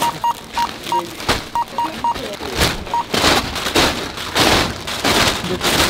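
Supermarket checkout barcode scanner beeping, about eight short beeps at an uneven pace as crisp bags are scanned. About three seconds in, crinkling thuds of plastic crisp bags being thrown one after another into a car boot.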